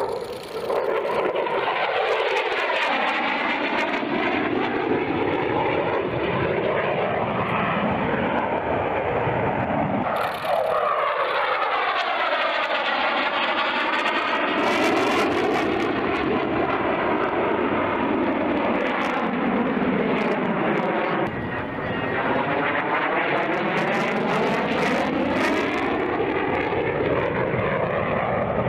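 F-16 Viper fighter jet's engine noise as it flies its display, a steady rushing roar from the aircraft in the air. Three times, about a second in, around ten seconds in and around twenty-one seconds in, the noise takes on a swirling, phasing sweep that falls and rises again as the jet passes and turns.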